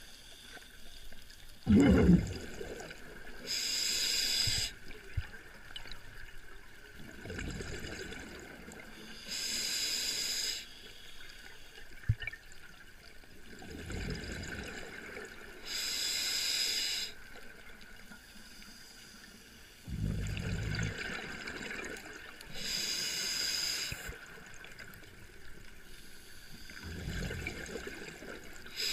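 Scuba diver breathing through a regulator underwater: a hiss on each inhale, then a low rumble of exhaled bubbles, repeating about every six or seven seconds.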